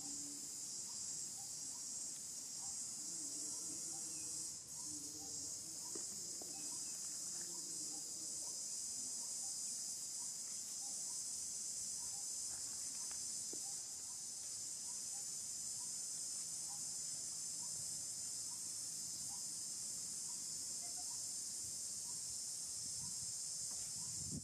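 Steady, high-pitched chorus of insects, an unbroken drone.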